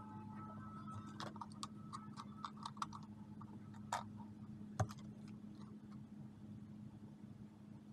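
Scattered light clicks and taps of hands handling paper and a plastic glue bottle, with a sharper click about four seconds in and another just under a second later, over a steady low hum.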